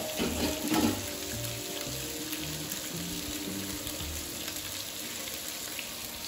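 Pieces of eel, Arctic char and trout sizzling steadily in butter in a frying pan, near the end of their cooking. The sizzle swells for a moment under a second in.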